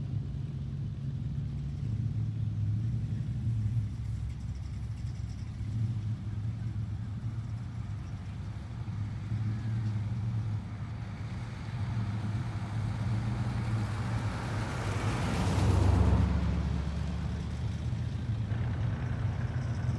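Cars leaving a car show, their engines running at low speed with a steady low hum. About three quarters of the way in, one car drives past close by, swelling to the loudest point and then fading.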